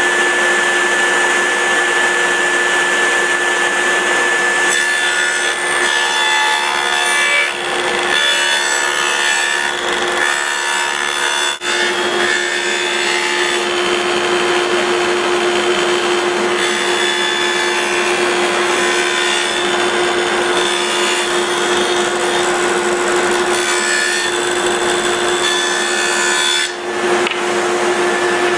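A woodworking power tool running continuously with a steady motor whine, cutting into wood with an added rasping noise from about five seconds in.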